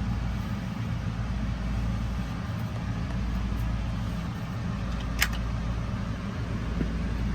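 Steady low mechanical hum, with a single sharp click about five seconds in.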